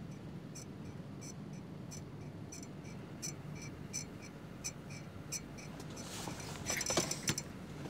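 Steady low rumble of a car cabin with a light ticking, about three ticks a second. From about six seconds in comes a crinkling, tearing rustle of a cardboard box.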